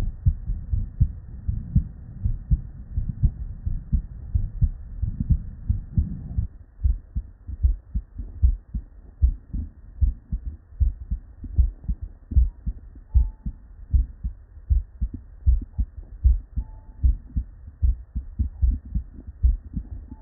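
Normal human heartbeat heard through a stethoscope: a steady rhythm of low thumps, the S1 and S2 sounds of a healthy heart. About six seconds in, the background rumble drops away and the beats stand out more clearly.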